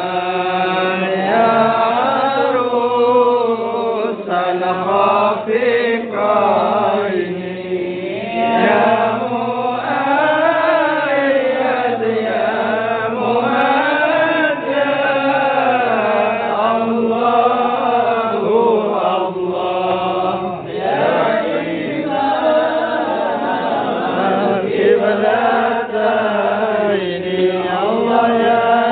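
Men chanting sholawat in Arabic, a devotional song in praise of the Prophet, led by a man singing into a microphone. The melody rises and falls slowly in long, unbroken sung lines.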